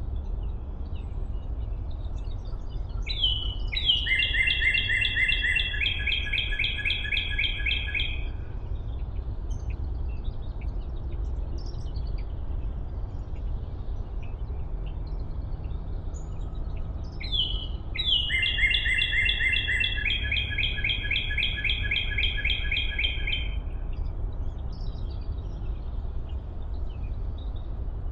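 A songbird singing a long, rapid trill twice, each song lasting about five seconds and opening with a quick slurred note, the trill shifting pitch partway through. A steady low rumble runs underneath.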